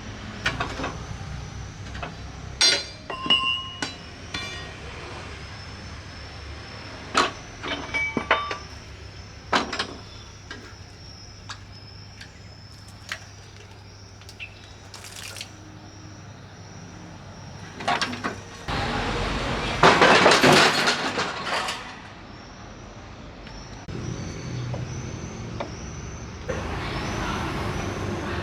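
Metal being worked: sharp clanks and knocks, some leaving a short metallic ring, over a low steady hum. About two-thirds of the way through comes a loud rushing hiss lasting about three seconds, and a softer hiss follows near the end.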